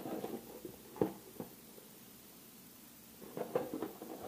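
Faint handling noises of a cardboard box and its paper packaging: a few light knocks and rustles, a sharper knock about a second in, then a quiet stretch and more rustling near the end.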